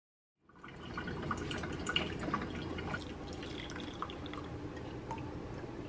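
Coffee pouring from a carafe into a ceramic mug: a faint trickle with small drips and splashes, starting about half a second in.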